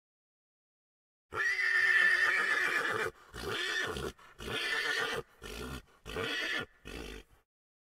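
A horse neighing: one long call starting a little over a second in, then a run of five shorter pulses.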